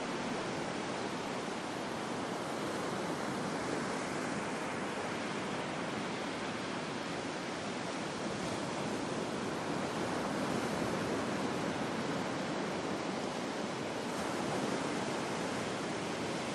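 Ocean surf breaking on a beach, a library sound-effect recording: a steady wash of waves that swells slightly now and then.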